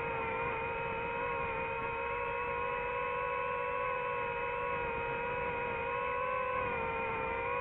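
DJI FPV drone's motors and propellers whining steadily in flight, a pitched hum whose pitch wavers slightly with throttle, as picked up by the drone's own onboard microphone.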